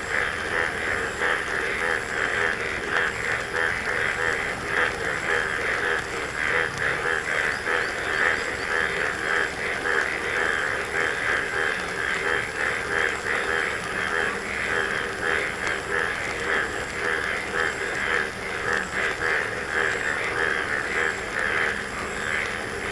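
Dense chorus of many frogs calling at once, a continuous rapid chatter that holds steady without a break.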